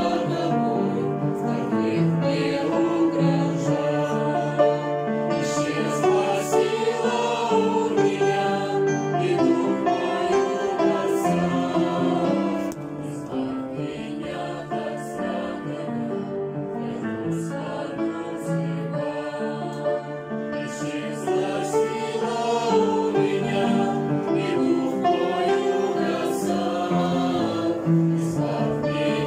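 Mixed choir of women's and men's voices singing a hymn with piano accompaniment. It turns softer about twelve seconds in and swells back up a few seconds past the twenty-second mark.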